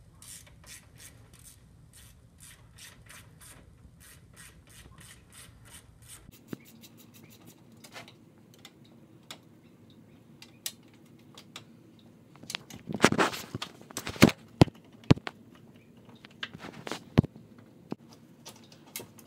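Ratchet wrench clicking in quick, even strokes as the radiator fan mounting bolts are backed out. About two-thirds of the way through comes a short cluster of loud knocks and clatter, then scattered clicks.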